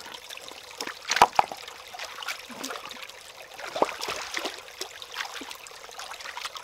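Water trickling steadily, with a few sharp clicks or knocks, the loudest about a second in and another near four seconds in.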